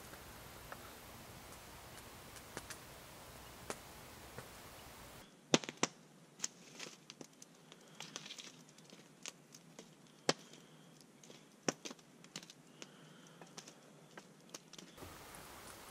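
Faint scattered ticks over a low steady hiss, then, from about five seconds in, a wood campfire crackling with sharp, irregular pops.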